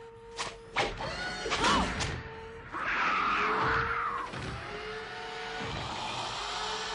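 Film soundtrack: a sustained musical tone under a monster fight, with several sharp impacts in the first two seconds and a harsh hissing screech about three seconds in.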